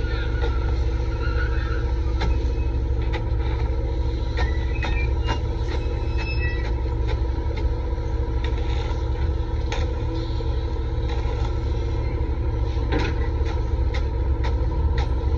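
Excavator diesel engine running steadily under work, with scattered clicks and knocks throughout and a few brief high squeaks.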